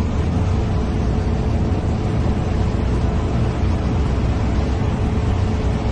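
Steady flight-deck noise of an Airbus airliner on final approach, close to touchdown: an even rush of airflow and engine noise, heaviest in the low end, with a faint steady hum.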